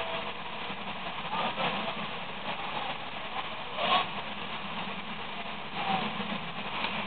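Fire engines at a fire scene, heard from a distance: steady engine noise with a low hum, with a brief louder sound about four seconds in.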